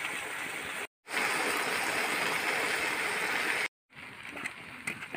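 Steady hissing of food cooking in a pot over a wood fire, heard in three short stretches cut apart by two brief silences. The middle stretch is the loudest; the last is quieter, with a few faint clicks.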